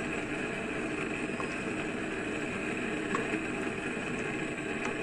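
Wooden spatula stirring a milk-and-butter sauce in a nonstick wok, soft and intermittent, over a steady background hiss with a few faint clicks.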